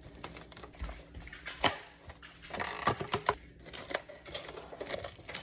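Stretch-Tite plastic cling wrap being pulled off its roll and pressed over a mixing bowl, crinkling and crackling with sharp irregular snaps. The loudest snap comes about a second and a half in, and a cluster follows near the middle.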